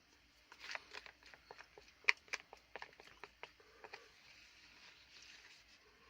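A person eating curry: a quick run of small clicks and wet smacks, mouth and utensil sounds, from about half a second to four seconds in, then they die away.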